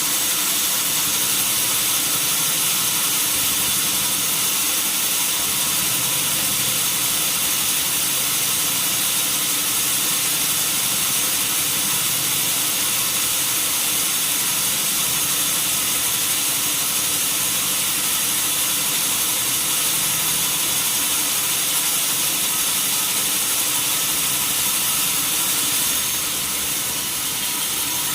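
Sawmill band saw machine running steadily: a constant high hiss with several steady tones, dipping slightly near the end.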